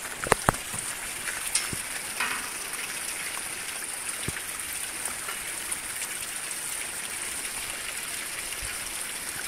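Steady rushing water, an even hiss, with a few short clicks and knocks in the first couple of seconds and one more about four seconds in.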